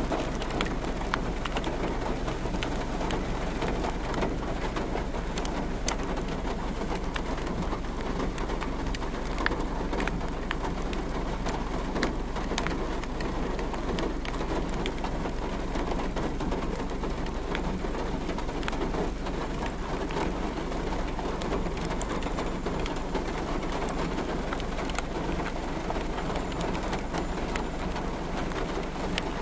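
Steady rain falling, with many sharp raindrop hits on a hard surface.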